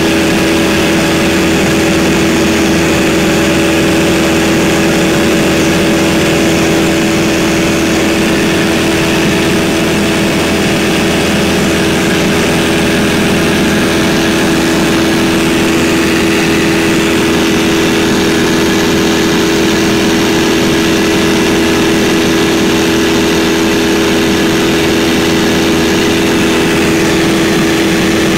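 Stinson 108 light aircraft's piston engine and propeller running steadily in flight, heard from inside the cabin: one constant drone that holds the same pitch and level throughout.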